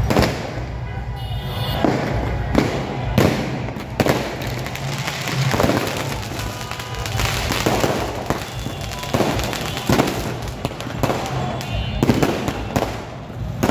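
Aerial fireworks going off overhead in an irregular string of sharp bangs, roughly one a second.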